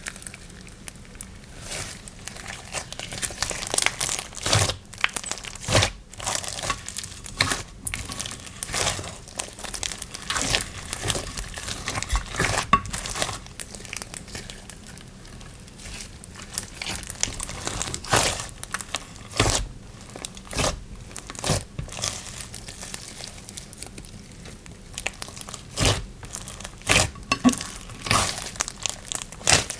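Slime being squeezed, stretched and pressed by hand, giving irregular crinkly crackles and sharp pops.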